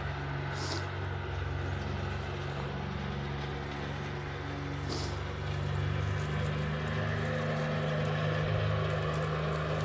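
A steady, low motor hum at a constant pitch, with two brief soft hisses, one just under a second in and one about five seconds in.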